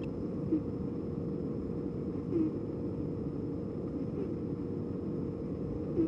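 Scottish Fold cat snoring in its sleep: short, squeaky, fart-like 'puu' snores about every two seconds over a steady low background noise.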